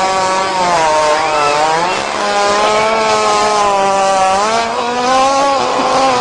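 A long, unbroken buzzing fart, holding one pitch that wavers slightly and steps a little higher about four and a half seconds in.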